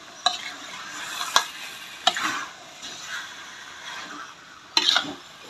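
Metal spatula stirring and scraping spice-coated chicken pieces around a metal wok while the paste sizzles in the pan. The spatula clacks against the wok a few times, loudest near the end.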